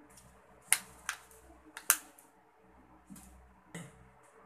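A few sharp clicks and taps from a seasoning shaker container being handled over the plate, irregularly spaced. The loudest come under a second in and just before two seconds in.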